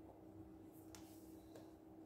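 Near silence: room tone with a faint steady hum and one faint tick about a second in.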